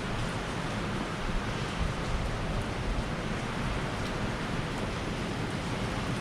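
Typhoon rain and wind making a steady, even hiss. The rain falls heavily without letup.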